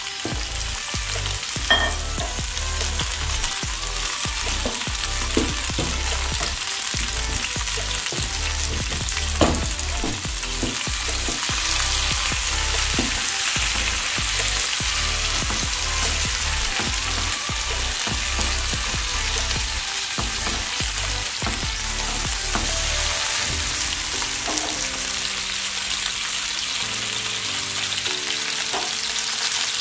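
Diced tomatoes sizzling in hot oil in a non-stick frying pan: a steady frying hiss, with a few sharp clicks, the loudest about nine seconds in.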